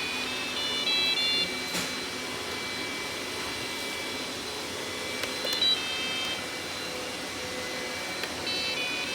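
Robot vacuum cleaner running with a steady whir, with short stepped electronic beep tunes near the start and again about halfway through.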